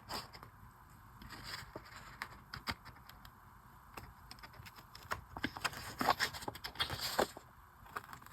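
Scissors cutting through sticker paper, a string of short snips and small clicks, busiest about six to seven seconds in.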